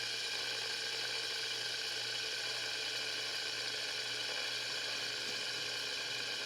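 Blue fidget spinner spinning freely after a flick, its bearing giving off a steady, even whir.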